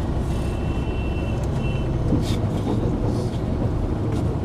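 Bus engine running with a steady low rumble, heard from inside the bus.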